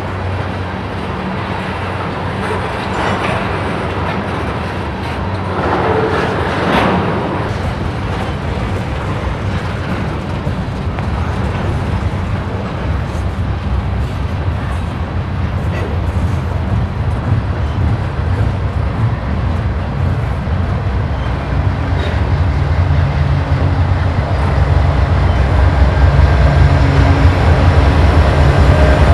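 Freight cars rolling past with steady wheel-on-rail noise. Over the last several seconds the low rumble of Canadian Pacific GE AC4400CWM diesel locomotives comes in and grows louder as they draw near.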